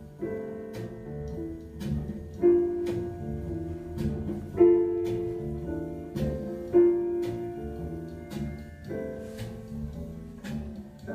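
Recorded instrumental music with piano, played over home-built hi-fi speakers with Philips 12100 drivers and horns. Three strong held notes come about two seconds apart, over a steady ticking beat.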